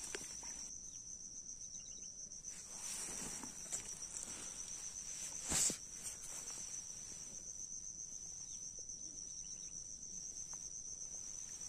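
Insects chirring steadily in a continuous high, rapidly pulsing trill. About five and a half seconds in, a brief loud rustle of a jacket sleeve brushing against the camera.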